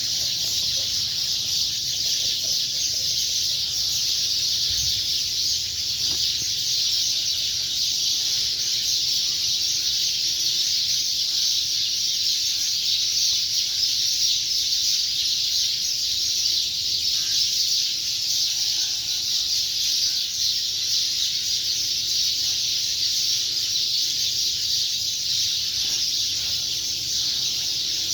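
A dense chorus of many small birds chirping at once, forming a steady, high-pitched, unbroken din.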